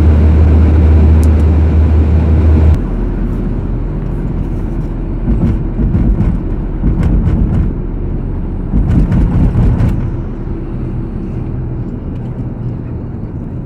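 Road and wind noise inside a car moving along a highway. A heavy low rumble drops off abruptly about three seconds in, leaving a lighter rumble with scattered thumps.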